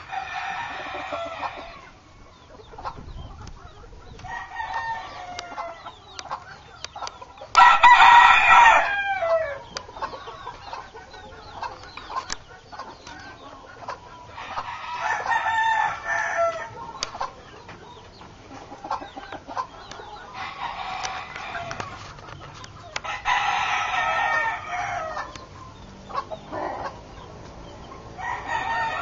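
Rooster crowing again and again, one crow every few seconds, each lasting about two seconds; the loudest crow comes about eight seconds in.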